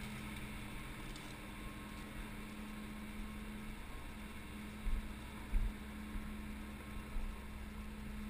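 A steady low hum, with a few dull thumps about five seconds in and one more about seven seconds in as a downhill mountain bike is handled on a concrete floor.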